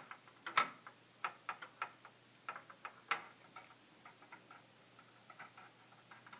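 Small metal ball of a Perplexus Epic maze rolling and knocking along the plastic track inside the clear sphere as it is tilted: a string of light, irregular clicks, a few louder than the rest, thinning out over the last couple of seconds.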